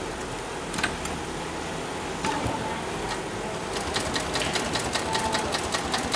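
9366HM heavy-duty long-arm zigzag sail-maker sewing machine. A couple of single clicks come first, then from about four seconds in the machine stitches, a rapid, even run of needle strokes.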